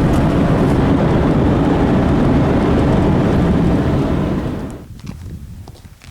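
Car road and engine noise inside the cabin of a moving car: a loud, steady rumble. It cuts away about three-quarters of the way through, leaving only faint clicks.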